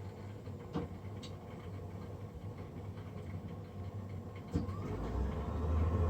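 Navien NCB-240 combi boiler's combustion fan running with a steady low hum; after a click about four and a half seconds in, a rising whine sets in and the hum grows clearly louder as the fan speeds up. This is the loud fan noise the owner is complaining of.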